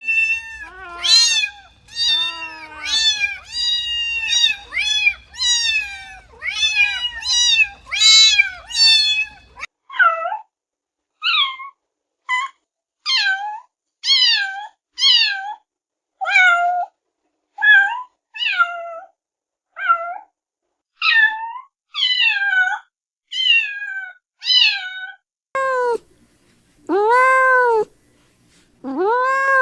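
Kittens meowing over and over, high-pitched falling meows in quick succession at first, then shorter separate meows about one a second. Near the end come a few lower, longer meows that rise and fall in pitch.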